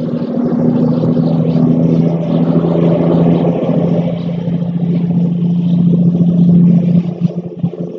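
A motor engine running at a steady pitch, a loud, even hum that swells a little and then breaks up and cuts in and out near the end.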